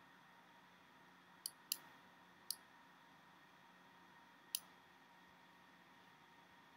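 Four sharp computer mouse clicks over faint room hiss: two close together about a second and a half in, one a second later, and a last one near the middle.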